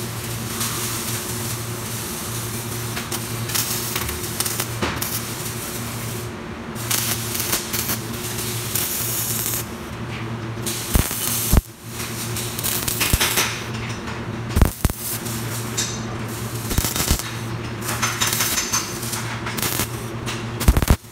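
Welding-shop noise: a steady electrical hum under a hiss that swells and drops off in stretches, with several sharp metal clanks as steel seat-bracket parts are handled in a welding jig, around the middle and again near the end.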